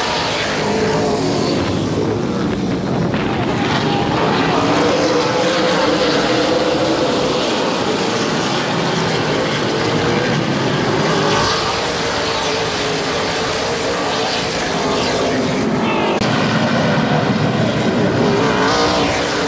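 A pack of super late model stock cars racing past, several V8 engines running hard at once, their pitch rising and falling as the cars come by and pull away.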